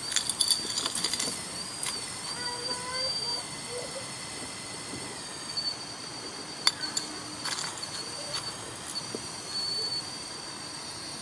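Small electric drive motors of a 1:16 RC Komatsu PW180 model excavator whining as the boom and bucket move, the pitch stepping up and down as each motion starts and stops. Gravel clicks and crunches under the bucket, several times in the first second and once sharply past the middle.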